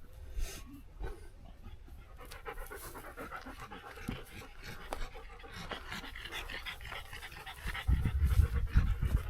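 A dog panting rapidly and steadily. A loud low rumble comes in near the end.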